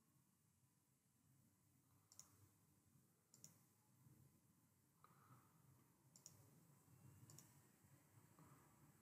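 Faint clicks of a computer mouse button, a few spaced a second or more apart, most of them a quick double tick, over near-silent room tone.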